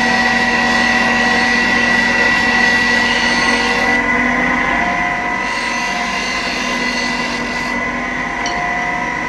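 A motor-driven shop machine running steadily with a constant whine over a hiss; the hiss thins out about four seconds in.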